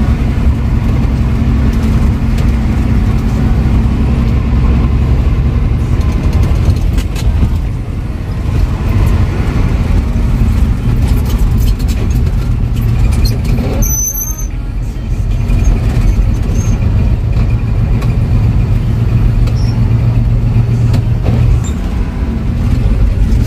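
Old Scania-Vabis truck engine running as the truck drives, a steady low rumble that eases briefly about eight and fourteen seconds in, with a short high squeal at the second dip.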